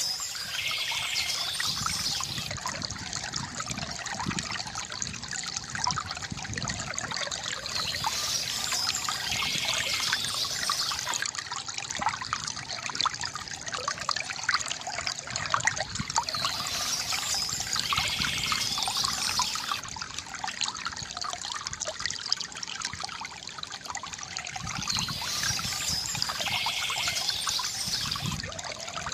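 River water gurgling and trickling without a break. Bursts of high bird chirping come back about every eight or nine seconds, four times in all.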